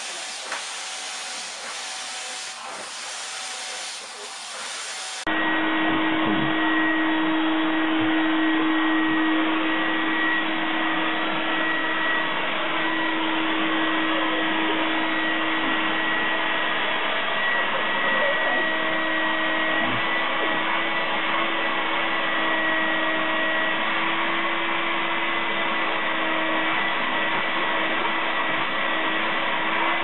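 Vacuum cleaners running. First a soft, airy hiss; then, about five seconds in, a sudden change to a louder canister vacuum whose motor holds a steady whine.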